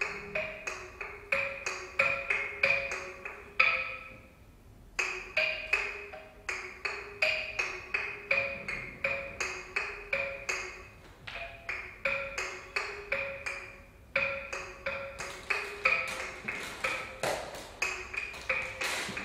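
Tuned percussion played live: quick repeated strikes, about three a second, on a few ringing notes that alternate in pitch, each with a bright overtone. The playing pauses briefly about four seconds in, then carries on.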